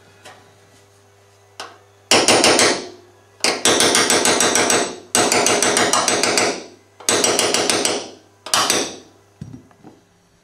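Chasing hammer tapping a steel punch into copper sheet, five quick runs of rapid light blows with short pauses between: chasing in the relief of a copper repoussé picture.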